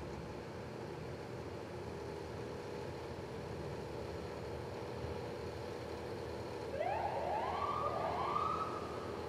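Steady rumble of idling vehicle engines and traffic. About two-thirds of the way in, an emergency vehicle siren gives three short rising whoops, the last one held briefly before it cuts off.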